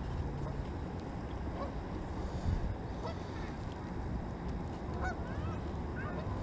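Several short bird calls, a few separate chirps and glides, over a steady low outdoor rumble of wind and water.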